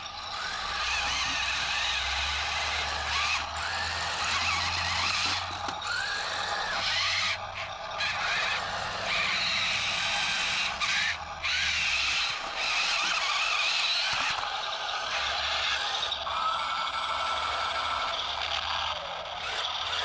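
Small 1/30 scale RC battle tanks driving, their little electric gear motors whirring and plastic tracks scraping, the whine wavering as they move and pausing briefly a few times.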